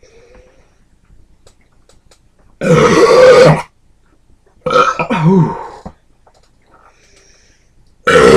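A man belching loudly three times after gulping down a can of carbonated beer: a long belch about two and a half seconds in, a second with a wavering pitch about two seconds later, and a third starting just before the end.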